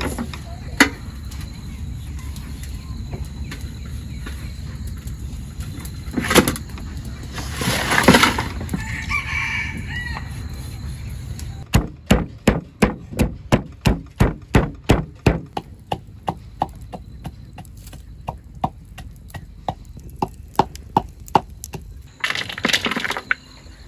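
Rapid pounding in a wooden mortar, a bottle used as a pestle crushing chopped roots, about four to five strikes a second, then lighter and sparser strikes. Before the pounding, a rooster crows.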